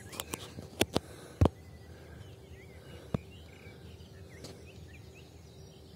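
Small birds chirping faintly in short, curling calls over a quiet outdoor background. A few sharp knocks come in the first second and a half, with two more later.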